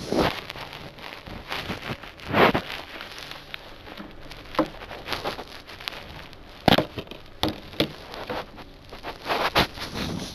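Handling noise close to the microphone: irregular rustling broken by sharp clicks and knocks, loudest about two and a half seconds in and again near seven seconds.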